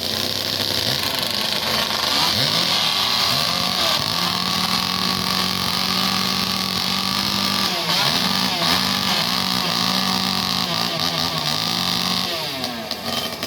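Several two-stroke chainsaws running at full throttle through a log, their revs dipping and rising as they cut; they stop about twelve seconds in.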